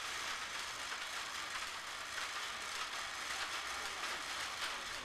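Steady hissing, rattling noise of wooden thread-winding wheels turning in a textile workshop.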